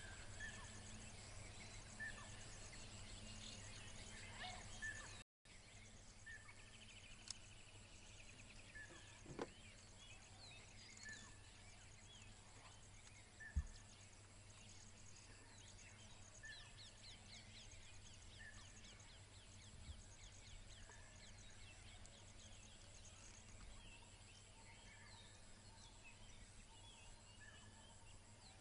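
Faint outdoor ambience: a bird repeating a short call every second or two over a steady high insect buzz and a low hum.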